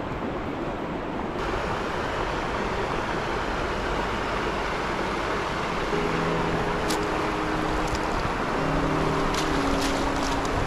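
Steady rush of a shallow river flowing over stones. About halfway through, soft sustained chords of background music come in.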